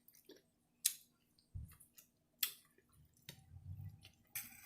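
Close-up mouth sounds of someone chewing a shrimp and broccoli stir fry: faint wet smacks and sharp clicks, about one a second.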